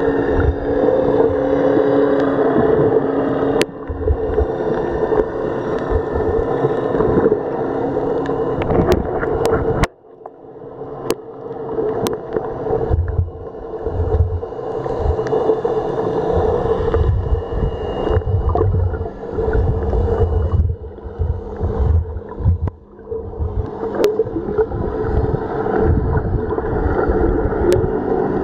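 Sea water heard through a camera held underwater: a muffled, rumbling water noise with a steady low hum and scattered sharp clicks. The sound drops out for a moment about ten seconds in.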